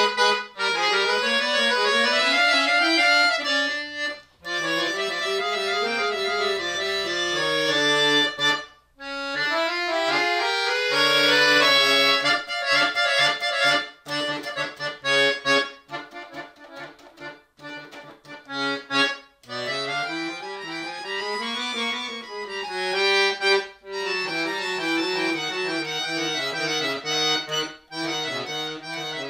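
Chromatic button accordion played solo: melodic lines over held chords, with a couple of brief breaks and a stretch of short, detached notes near the middle.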